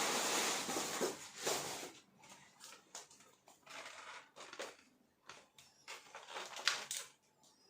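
Handling noise from a large plastic action figure and its parts: a rustling for about two seconds, then scattered light clicks and taps of plastic knocking together.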